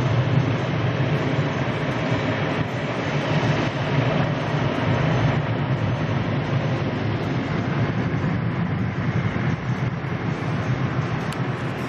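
Car wash drying blowers running with a loud, steady rush of air and a low hum, heard from inside the car's cabin.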